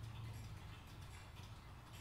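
Many mechanical wall clocks, mostly Black Forest cuckoo clocks, ticking at once, their ticks overlapping out of step. A low hum fades out about half a second in.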